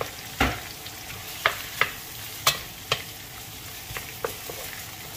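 Onions and tomato wedges sizzling in oil in a stainless steel wok, stirred with a wooden spatula that knocks and scrapes against the pan about seven times, the first and heaviest a thump about half a second in.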